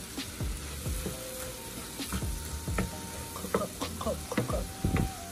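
Chopped vegetables sautéing in a hot pan with a steady sizzle. A utensil stirs and knocks against the pan about a dozen times, most sharply about three and a half and five seconds in.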